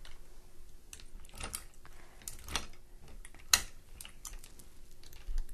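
Small clicks and light rattles from a dog wheelchair's metal frame being adjusted by hand: spring push buttons pressed and the telescoping width bar slid. The sharpest click comes about three and a half seconds in.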